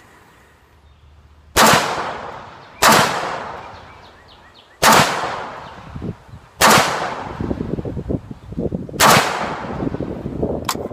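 Five loud gunshots at uneven spacing, each trailing off in a long echo, with light knocks between them and a sharp click near the end.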